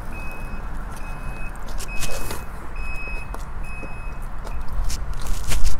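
A high electronic warning beep repeats about once a second, each beep about half a second long, over a steady low rumble. Short crackling clicks come through, and a dense cluster of them just before the end is the loudest sound.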